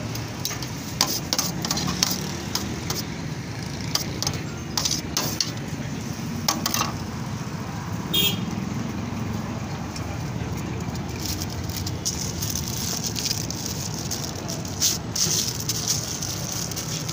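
Scattered metal clinks and scrapes of a knife and spoon against a steel tray while chicken is shaved off a shawarma spit and sauce is spooned on, over a steady low rumble.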